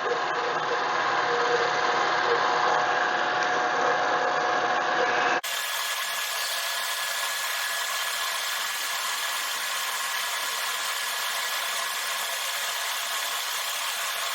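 Mini lathe running while a number 7 drill bores a 1/4-20 tap hole into a polycarbonate workpiece: a steady motor whine over cutting noise. About five seconds in the sound changes abruptly to a thinner, slightly quieter version and then runs on steadily.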